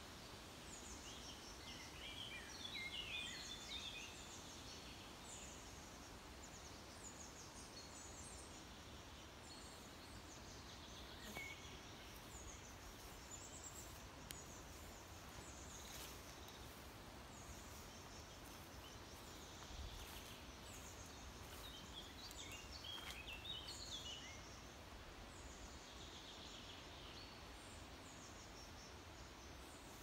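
Faint songbirds singing in short, scattered chirping phrases over a quiet steady background hiss, with the liveliest bursts of song a few seconds in and again about three-quarters of the way through.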